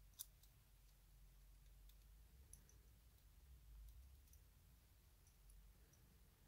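Near silence broken by a few faint, light metallic clicks of a slim tool and small parts on a Colt 1908 vest pocket pistol's frame, the sharpest one just after the start.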